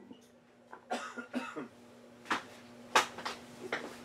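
A steady low hum with faint background voices and a few short, sharp sounds. The loudest come about two and three seconds in.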